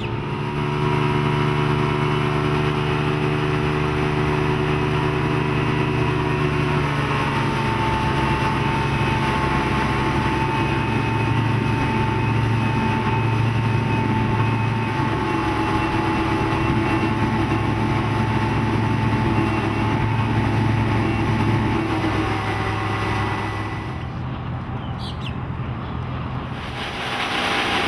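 Johnson 150 outboard motor running steadily as the boat cruises, its pitch shifting about a quarter of the way in. It eases off briefly near the end, then comes back up.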